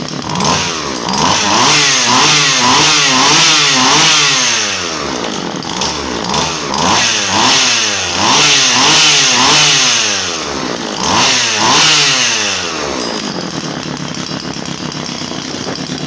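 Husqvarna 137 two-stroke chainsaw running, revved up and down in quick repeated blips in three bursts, with idling between them and near the end. The chain is being spun to test whether the freshly cleared chain-oil pump delivers oil.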